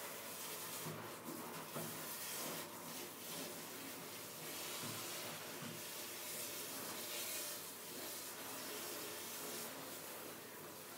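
Steady hiss with soft rubbing strokes of a metal comb drawn through a dog's long, thick fur, a few sharper strokes in the first three seconds.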